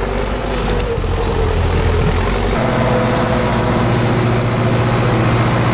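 Heavy vehicle engine running steadily under load. About two and a half seconds in, its note changes to a different steady pitch.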